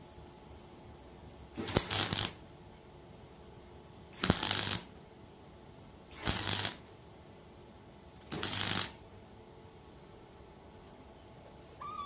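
Gasless flux-core MIG welder laying four short tack welds, each a crackling burst of about half a second, roughly two seconds apart. A brief squeak comes near the end.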